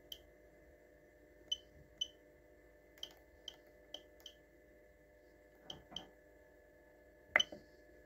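Short high ticks from a TECH ST-480 boiler controller as its rotary knob is turned and pressed through the menus: about ten irregular ticks, with the loudest one near the end. A faint steady hum runs underneath.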